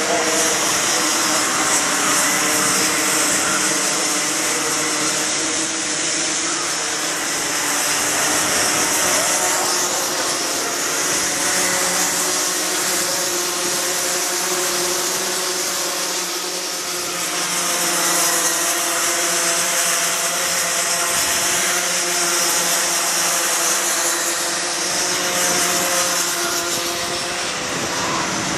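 Several racing karts' two-stroke engines buzzing at high revs as a pack laps the circuit, their overlapping pitches rising and falling as they pass.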